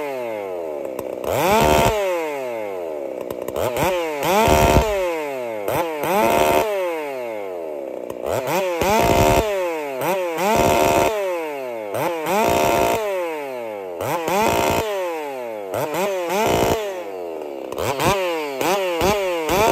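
Poulan two-stroke chainsaw revved up and let back down over and over, about every second or two, with the chain running free above the log.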